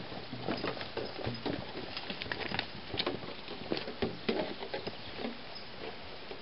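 Footsteps on a dirt trail: irregular scuffs and clicks over a steady hiss. They come thickest in the first four seconds and thin out near the end.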